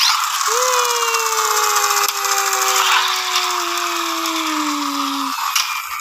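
Small plastic toy road roller whirring and rattling as it runs. Its tone slides slowly down in pitch over about five seconds, then stops.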